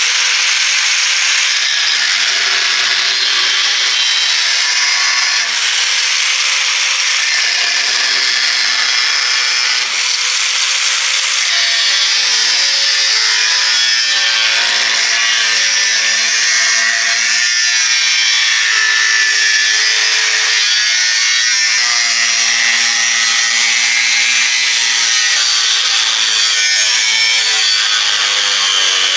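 A power tool abrading steel without a break, a continuous hissing grind. From about eleven seconds in, a lower hum joins it and shifts in pitch every second or two as the load changes.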